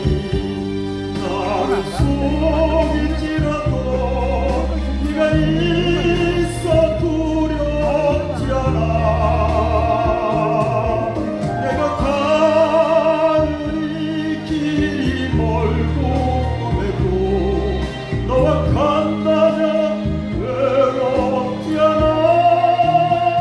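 A man singing into a microphone through a PA system over instrumental accompaniment, with long held notes that waver in vibrato.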